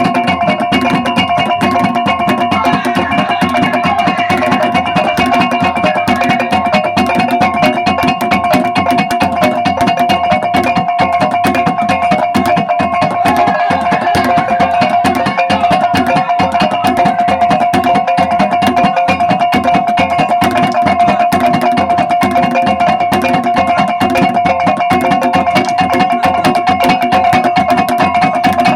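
Traditional Ngada gong-and-drum music: gongs ring steadily over a fast, dense run of gendang drum strokes.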